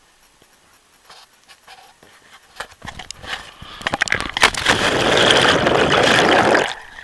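A few scuffs and clicks, then from about four seconds in a loud rush of splashing, churning river water as a person slides off the rocks into the river with the camera strapped to him. The rushing cuts off abruptly about a second before the end.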